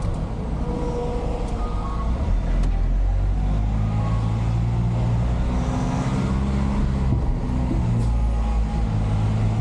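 Light cargo truck's engine running, heard from inside the cab while creeping through city traffic: a steady low hum that grows a little stronger about three to four seconds in.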